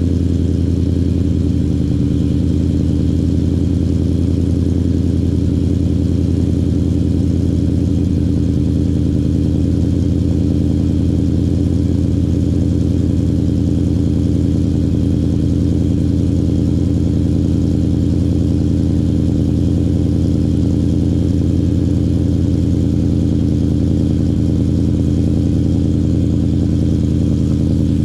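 Ford Mustang Mach 1 V8 idling steadily through 3-inch Magnaflow mufflers just after a cold start.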